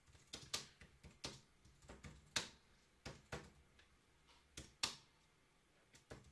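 Quiet, irregular clicks of keys being pressed on a computer keyboard, a dozen or so scattered unevenly, the sharpest about two and a half and five seconds in.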